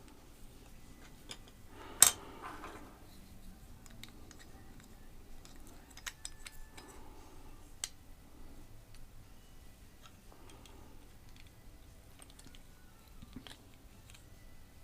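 Small scattered clicks and taps of plastic and metal parts being handled while wheels and axles are fitted to a 1/64 diecast toy truck, with one much louder sharp click about two seconds in.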